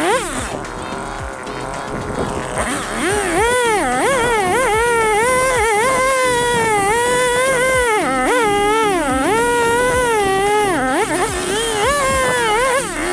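Chainsaw running at high revs, fainter at first and loud from about three seconds in. Its pitch dips and rises unevenly, as an engine does when it bogs under load and recovers, typical of a saw cutting into wood.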